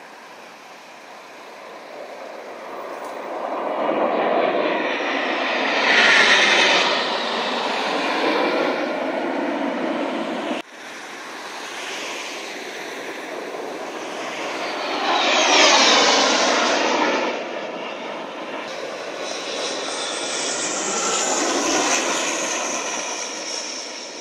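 Display-team jet aircraft passing overhead, their engine noise swelling and fading over three passes. On the middle, loudest pass the pitch falls as the jets go by. Near the middle of the first half the sound breaks off abruptly and comes straight back.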